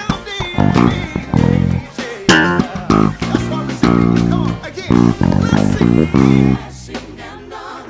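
ESP LTD B-155DX five-string electric bass playing a busy gospel groove of short, quick notes and runs, over a full gospel band recording.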